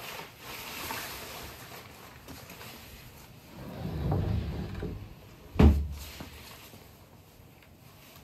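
Golden retriever scuffling and playing rough with a towel on the floor: fabric rustling and paws scrabbling, a louder low rumbling stretch about four seconds in, and a single heavy thump about five and a half seconds in.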